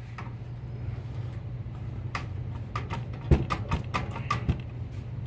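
A quick string of light clicks and knocks, about ten in under three seconds, as the old PC case and its panels are handled, over a steady low hum.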